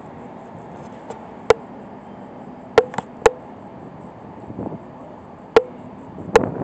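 Renfe Class 448 electric multiple unit pulling out of a station, a steady running rumble broken by about half a dozen sharp, ringing clacks at uneven intervals as its wheels pass over track joints.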